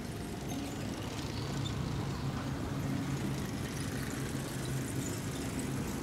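Steady low hum of a motor vehicle engine idling, over a faint background of street noise.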